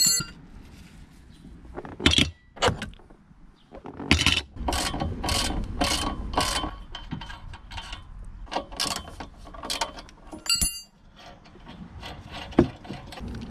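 Ratchet wrench clicking in runs of short back-and-forth strokes as the nuts of a steel bumper mounting clamp are undone, with a ringing metal clink of a tool near the end.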